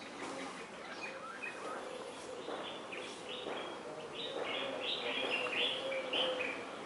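Small birds chirping and singing, with a quick run of short chirps in the second half.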